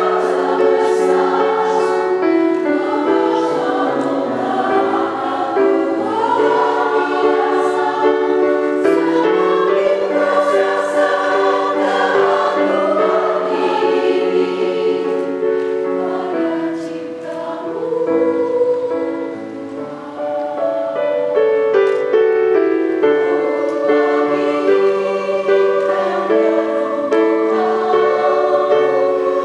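Women's choir singing in several-part harmony, held chords moving from note to note, with a softer passage about two-thirds of the way through before the voices swell again.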